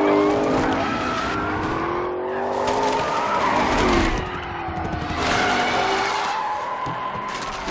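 Car engine revving, its pitch rising and falling, with tyres squealing and skidding. The engine and squeal dip briefly about four seconds in, then pick up again.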